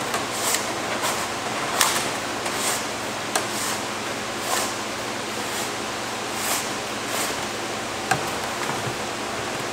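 Steady whoosh of shop fans, with scattered brief rustles, scrapes and clicks as a fish tape and wire are worked through a kayak's hull.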